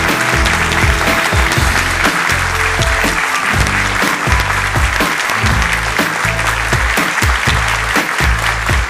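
Audience applauding, with background music underneath.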